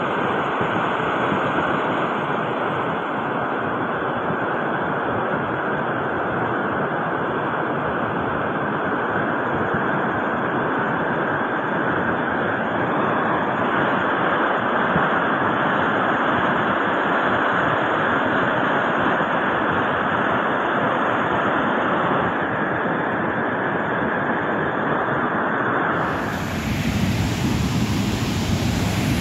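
Muddy floodwater of a flash flood rushing over boulders, a steady loud rush of water. About three seconds before the end it changes to a deeper, lower rush.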